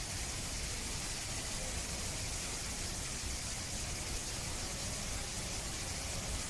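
Steady hiss with a low rumble underneath, even throughout with no distinct events.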